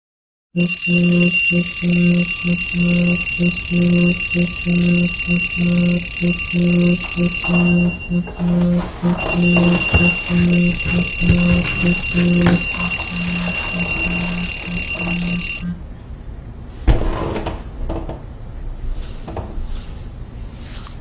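Alarm ringing: a low beep pulsing about twice a second under a steady high ringing tone. The ringing breaks off briefly near the middle and stops about three-quarters of the way through. After it comes a single thump and soft rustling of bedding.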